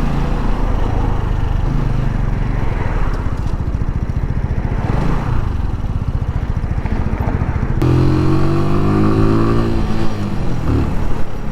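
Keeway Superlight 125cc motorcycle engine running at low speed in slow traffic, then revving up about eight seconds in with a rising pitch as it pulls away.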